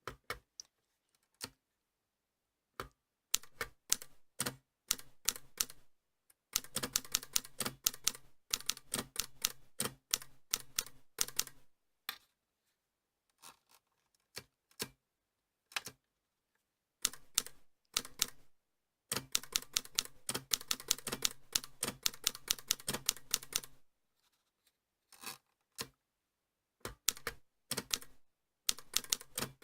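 Olivetti Lettera 35 manual portable typewriter being typed on: runs of quick keystrokes, several a second, broken by short pauses of a second or two.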